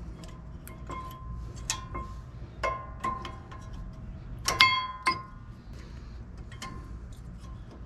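Metal tools and brake parts clinking and tapping together, a dozen or so sharp strikes that each ring briefly at the same note, with the loudest cluster about four and a half seconds in.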